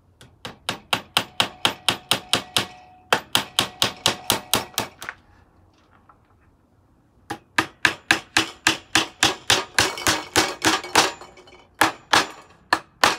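Claw hammer driving nails into the wooden boards of a crate frame: quick runs of sharp strikes at about four a second, with a break of about two seconds midway.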